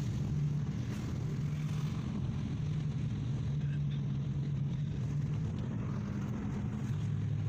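Car driving, its engine and road noise heard from inside the cabin as a steady low drone.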